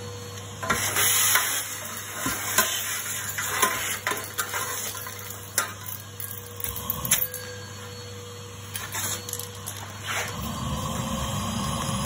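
Numatic Henry vacuum cleaner running with a steady hum, as ash and grit rattle up its metal wand and the wand's nozzle clicks and scrapes against a sheet-metal ash tray in irregular bursts.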